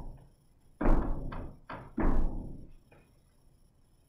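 Feet landing on a gym floor in a jumping boxing drill: two louder thuds about a second apart, each with a lighter one after it, ringing briefly in the room.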